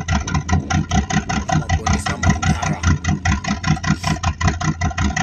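Car engine idling, heard at its twin exhaust tips: a steady, even exhaust pulse repeating several times a second.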